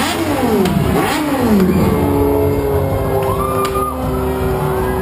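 Motorcycle engine revved several times in the first two seconds, each rev rising and then falling in pitch, with music playing underneath.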